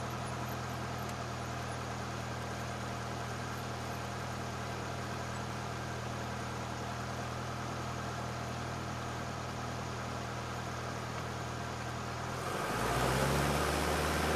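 Cessna 172SP's four-cylinder Lycoming engine running steadily at low power. About twelve and a half seconds in, the throttle is opened for the takeoff roll, and the engine note rises in pitch and grows louder.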